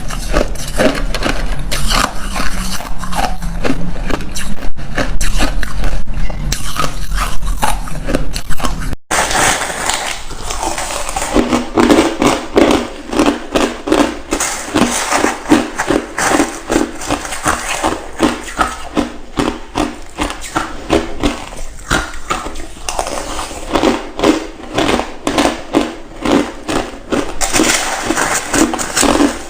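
Ice being bitten and chewed close to the microphone: dense, sharp crunching and cracking. About nine seconds in the sound changes abruptly, and steady rhythmic chewing crunches follow, about two or three a second.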